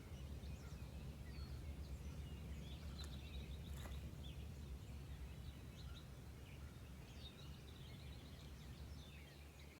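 Forest ambience: small birds chirping and twittering, with a couple of quick trills, over a steady low rumble. One sharp click about four seconds in; the sound fades out near the end.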